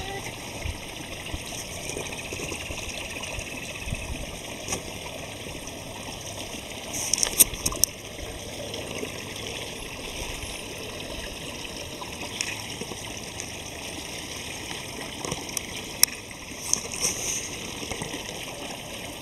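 Steady trickling water, with a few light clicks about seven and sixteen seconds in.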